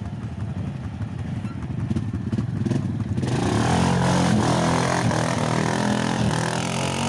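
Arctic Cat ATV engine running, getting much louder about three seconds in as the machine comes close.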